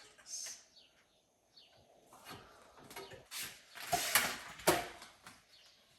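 A series of short mechanical clicks and clacks, loudest about four seconds in, with faint bird chirps in the background.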